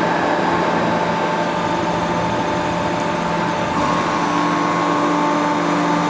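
Hydraulic press brake's pump unit running with a steady machine hum and several steady tones; the tones shift about four seconds in, as the machine's load changes.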